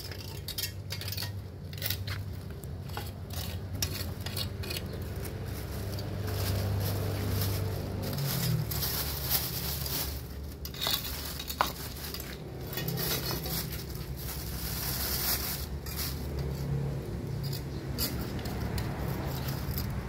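Irregular small clicks, taps and scrapes of litter tongs working against a concrete drain gutter, with the rustle of a plastic bag and leaf debris as rubbish is picked out and dropped in, over a low steady hum.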